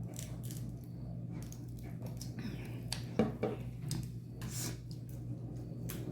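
Crab-leg shells being cracked and picked apart by hand: scattered sharp clicks and snaps, the loudest about three seconds in, over a steady low hum.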